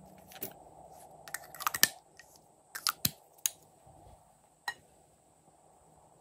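Sharp plastic clicks and taps from lipstick tubes being handled, the loudest cluster a little under two seconds in, then a few single clicks.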